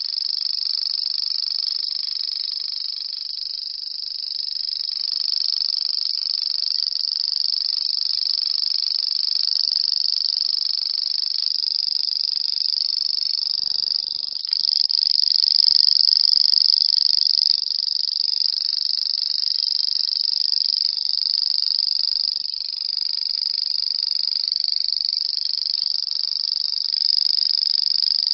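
Grasshopper stridulating: an unbroken high-pitched buzzing trill, holding steady and growing a little louder about halfway through after a brief dip.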